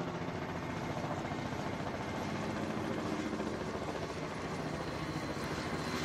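Kamov Ka-27 naval helicopter in flight, its coaxial rotors beating steadily over the hum of its turbines.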